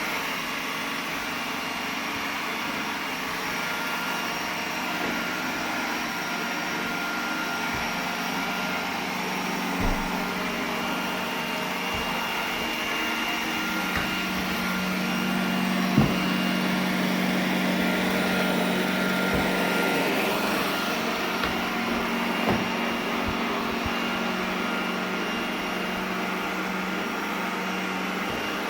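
iRobot Roomba 980 robot vacuum running steadily, with a hum that strengthens for several seconds midway, and a handful of short knocks scattered through.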